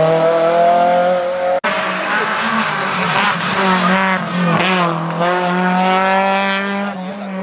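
Rally car engines revving high as the cars pass at speed, the pitch climbing as they accelerate and dropping at gear changes. The sound breaks off abruptly about one and a half seconds in and picks up again with another car.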